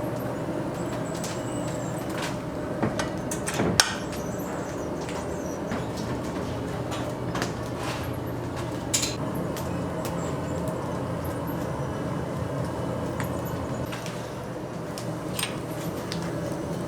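Food-shop kitchen sounds: a steady mechanical hum, with scattered sharp clinks and knocks, the loudest just before four seconds in.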